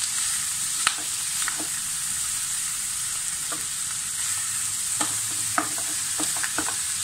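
Small clams frying in a non-stick kadai, sizzling steadily while a wooden spatula stirs and turns them, with scattered sharp clicks as the mix is scraped and knocked about the pan.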